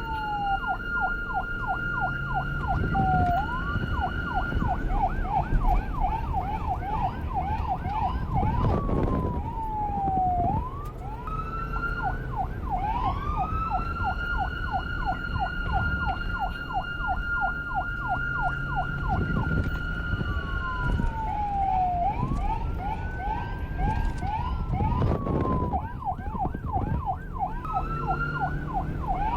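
Electronic police car siren switching between slow falling and rising wail sweeps and a rapid yelp, with a steady high tone held alongside for long stretches. A low rumble runs underneath.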